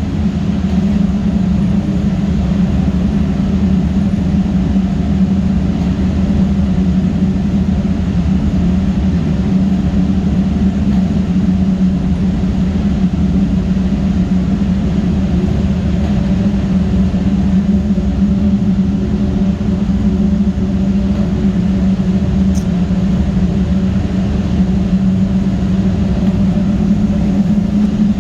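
Steady drone of steam boiler-room machinery running, with a strong even hum that holds without a break.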